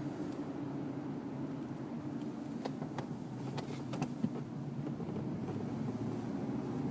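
2007 Dodge Dakota running with a steady drone, with a cluster of short sharp clicks or ticks between about two and a half and four seconds in.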